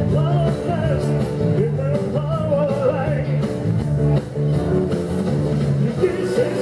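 A man singing into a microphone over amplified backing music from a PA speaker, with a steady rhythmic bass line beneath a wavering sung melody.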